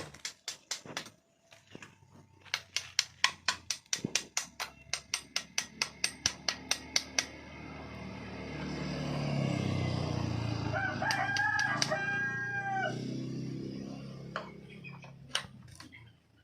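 A rooster crows once, a drawn-out call of about two seconds, past the middle. Before it comes a quick run of sharp knocks, about four a second, like hammering. A low rumble swells and fades beneath the crow.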